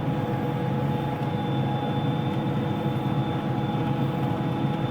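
Combine harvester running steadily while harvesting wheat: a continuous low machine drone with several constant whining tones over it.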